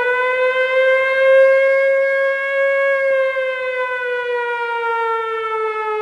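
A siren wailing in one long, loud tone: it holds steady and then slowly falls in pitch through the second half.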